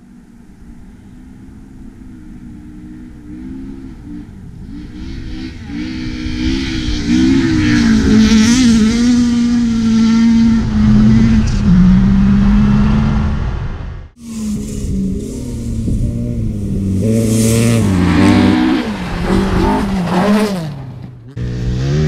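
Rally car engines running hard on a gravel stage. The first grows from faint to loud and holds at high revs. It breaks off suddenly about two-thirds of the way through, then comes back with the revs rising and falling repeatedly.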